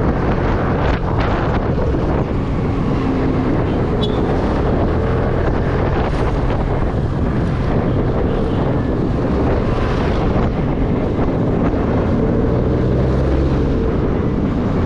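Wind buffeting the microphone while riding a Vespa scooter, with the scooter's engine running steadily underneath.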